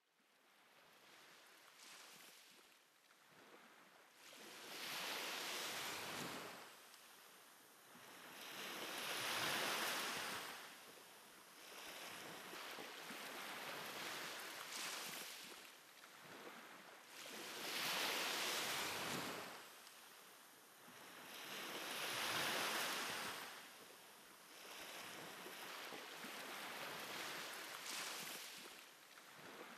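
Small sea waves washing onto a beach, fading in over the first few seconds and then swelling and falling back about every four to five seconds.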